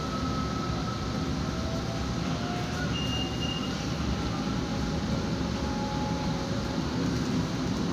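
Steady running noise of a Manila LRT Line 2 light-rail train heard from inside the passenger car: wheels rumbling on the rails, with a faint whine that drifts slowly in pitch.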